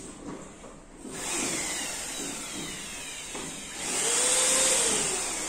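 Electric air blower running and forcing air through a hose into an inflatable boat. It starts about a second in as a steady rush of air, then grows louder with a motor pitch that rises and falls near the end.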